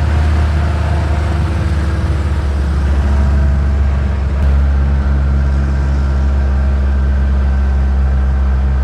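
Jeepney engine running steadily under way, a loud low drone heard from the front seat inside the cab.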